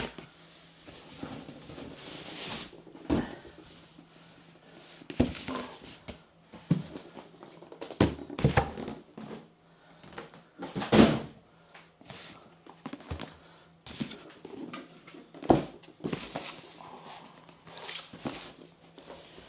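Cardboard boxes and packaging being handled: rustling and sliding of cardboard, with several dull thumps as boxes are knocked and set down on a wooden table, the loudest about halfway through.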